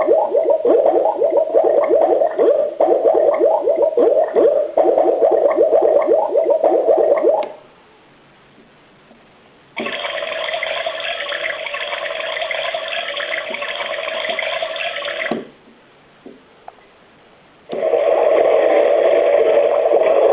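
Recorded nature sounds of rushing water from an alarm clock's built-in speakers, played as separate tracks that stop abruptly twice with short silences in between. The middle track is a brighter, hissier water sound than the first and last.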